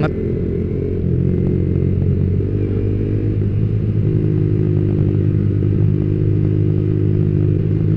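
Yamaha Vixion R's 155 cc single-cylinder engine running at a steady, moderate speed while the motorcycle is ridden along a rough road.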